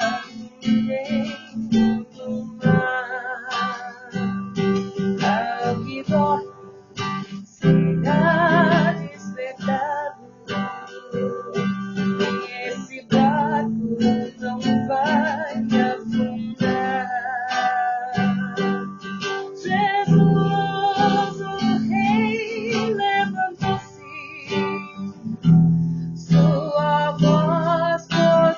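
Acoustic guitar strumming a slow hymn accompaniment, with a voice singing long, wavering held notes over it.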